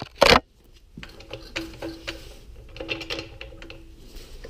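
A floor jack being handled and set in place under the car: a short loud clank just after the start, then irregular metallic clicking and rattling with a faint steady whine through the middle.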